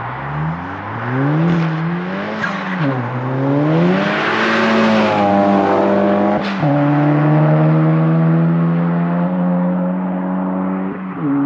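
Volkswagen Golf GTI's turbocharged four-cylinder engine and aftermarket exhaust under acceleration through the gears: the engine note climbs, drops sharply at upshifts about 3 and 6.5 seconds in, holds a steady pitch, and drops again at another shift near the end.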